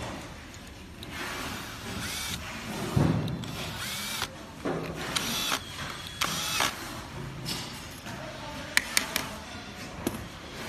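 Cordless drill/driver running in about six short bursts, each spinning up and stopping within a second, as it drives screws at the front fork over a scooter's hub motor. A few sharp clicks near the end.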